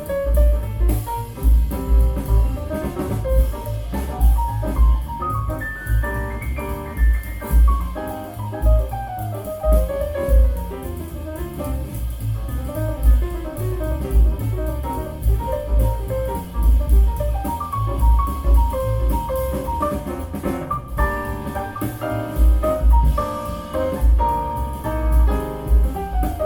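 Jazz-style music with a deep, pulsing bass line under melodic lines, played back through Kef R11 Meta floorstanding loudspeakers and picked up by a microphone in the room.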